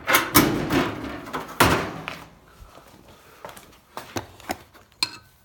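Handling noise on a dryer's sheet-metal cabinet: two loud scraping, rattling sounds in the first two seconds, then scattered sharp clicks and knocks, as panels and fasteners are worked loose.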